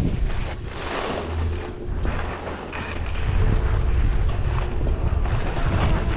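Wind buffeting the microphone of a skier's camera during a downhill run, with skis hissing and scraping across packed snow through turns. The sound eases a little in the middle, then picks up again.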